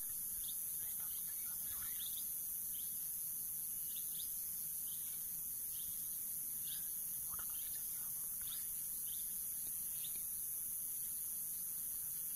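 Wild birds giving short high chirps about once a second over a steady high-pitched drone of insects.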